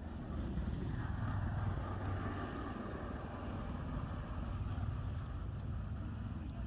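Steady low outdoor rumble, with a hiss that swells about a second in and slowly eases.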